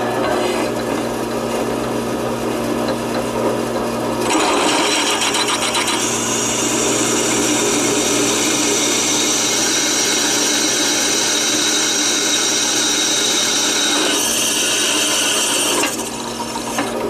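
Drill press running with its twist bit cutting a bolt hole through a threaded pipe flange into a brake drum hub. The cutting gets louder about four seconds in, carries a high steady whine through the middle, and eases off near the end as the hole is finished.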